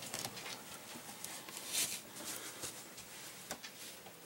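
Faint handling noise: soft rustling and a few light, scattered taps from a handheld camera being moved about.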